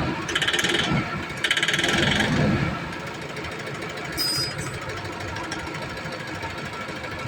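Toyota Innova engine being revved twice in quick succession, each rev bringing a loud, fast rattling knock, then dropping back to a steadier idle. This is the abnormal engine noise the owner is showing.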